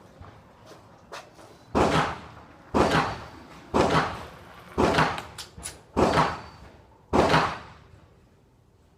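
Six gunshots fired at a steady pace, about one a second, each followed by a short echoing tail.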